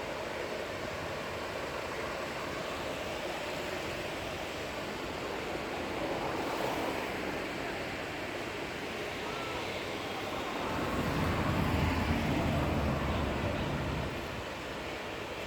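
Steady outdoor ambience, a noisy wash like wind and distant surf. About ten seconds in, a louder low rumble swells up, then fades out about three and a half seconds later.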